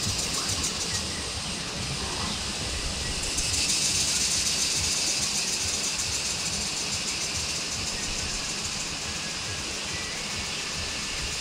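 Outdoor ambience: a steady high-pitched hiss that swells a few seconds in, over a low, unsteady rumble.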